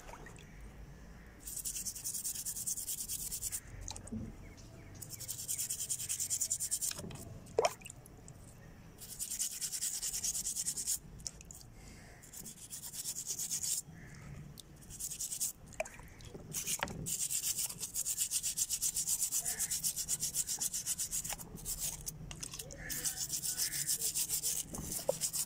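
Toothbrush scrubbing rusty, wet revolver parts, a fast scratchy rubbing in spells of a few seconds with short pauses, and a few light knocks in between.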